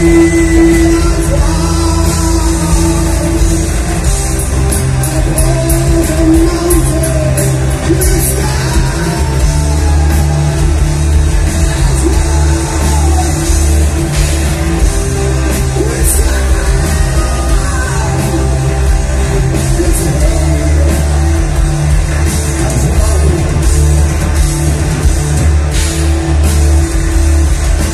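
Heavy metal band playing live: distorted guitars, bass and drums with a singer's long, held vocal lines gliding over them, loud and steady throughout. Heard from the audience in a club hall.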